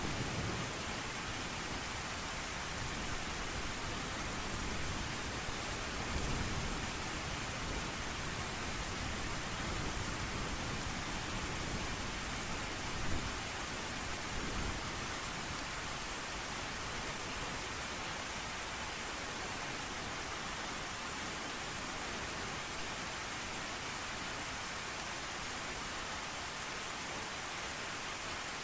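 Steady heavy rain falling, an even rushing hiss, with a few low rumbles of distant thunder in the first half.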